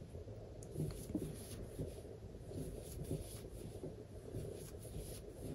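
Faint, irregular rustling and light scraping of yarn being worked with a metal crochet hook, loops pulled through stitch after stitch.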